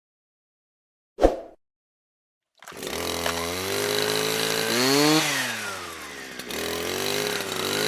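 A single short knock after silence, then about a third of the way in a brushcutter engine comes in and runs. It revs up, drops back down, and picks up again a little near the end.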